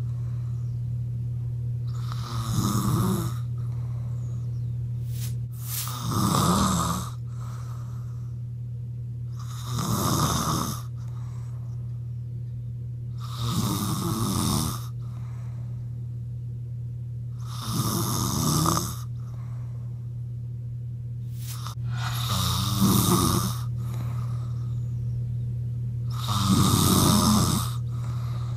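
A woman snoring in her sleep: seven rough, rattling snores, about one every four seconds, over a steady low hum.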